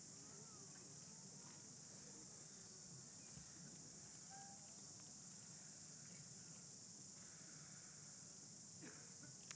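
Near silence: a faint steady high hiss, with a few faint chirps.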